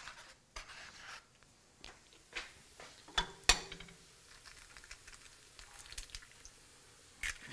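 Egg handling: a few light clicks and knocks as eggs are taken from a paper carton and one is cracked against the rim of a nonstick skillet and pulled open over the mushrooms.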